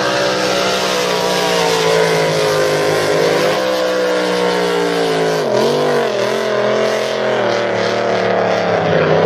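Racing powerboat engine running hard at a steady high pitch. The revs dip briefly and pick up again twice, about five and a half to six and a half seconds in.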